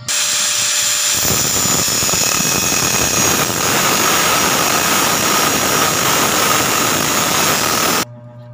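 Angle grinder running, its disc grinding into the steel clamp of a motorcycle gear shift lever to widen the clamping slot: a loud, steady grinding with a high whine. It starts suddenly, grows fuller about a second in as the disc bites into the metal, and cuts off sharply near the end.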